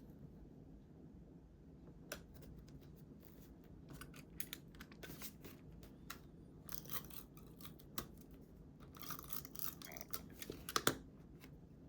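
Paper being handled and cut at a desk: scattered snips, rustles and scratchy rubbing, growing busier through the second half and ending in a couple of sharp clicks.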